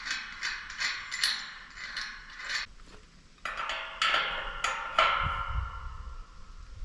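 Metal tool work on a steel farm gate's hinge hardware as it is tightened: a run of sharp taps about two to three a second, then, after a brief pause, a few louder metallic clanks that ring on.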